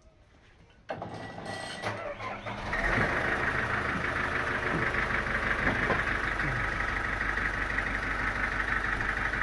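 A sawmill engine starting about a second in, building up over the next couple of seconds, then running steadily with a strong high-pitched whine over a low drone.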